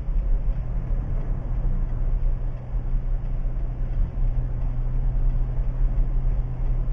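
Steady engine and road noise inside a moving car's cabin: a low, even hum with rumble beneath it.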